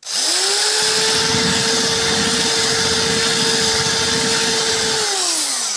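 Electric drill with a diamond-coated tube bit grinding into glass: the motor whines up to speed right at the start, runs steady under load with a grinding hiss, and winds down with a falling whine near the end.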